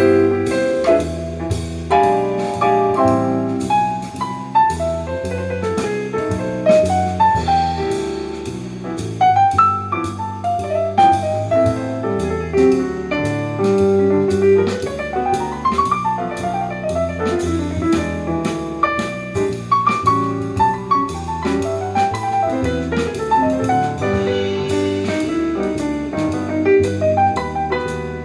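Instrumental jazz music with piano and a drum kit keeping a steady beat.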